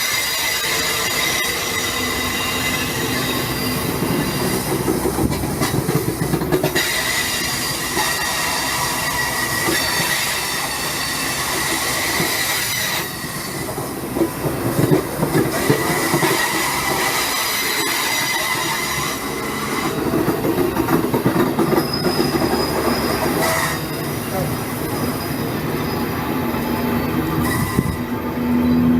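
Passenger train rolling on the rails, its wheels squealing in sustained high tones that fade out and return every few seconds over a steady rumble and rattle, with a few sharp knocks along the way.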